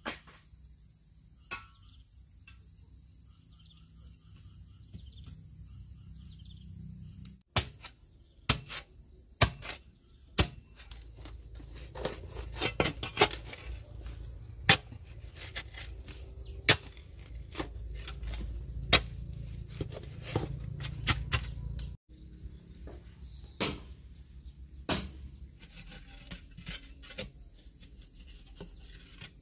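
Irregular sharp knocks and clicks from something being handled or struck, densest through the middle, over a low rumble. Faint insects chirp in the first few seconds.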